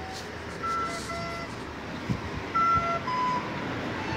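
A run of beeping tones at several different pitches, each held about half a second, over a steady outdoor background noise, with a couple of thuds about two seconds in.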